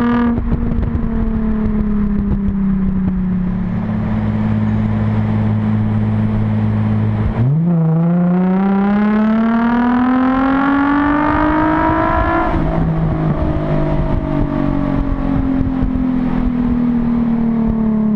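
Nissan 350Z's VQ35DE V6 through a Japspeed K1 cat-back exhaust and Y-pipe, heard right at the tailpipe: off the throttle and settling for the first several seconds, then about seven seconds in the throttle opens sharply and the engine pulls hard, its pitch rising for about five seconds before the driver lifts off and the pitch falls away again. Much of it is heard inside a tunnel.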